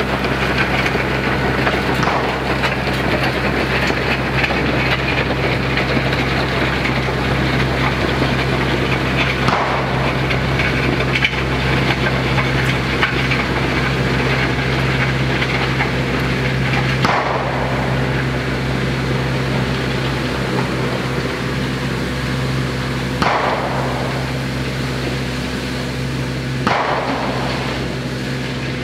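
RK 55 compact tractor's diesel engine running steadily while the land plane behind it scrapes and rattles over the gravel driveway, with a few sharp clanks along the way.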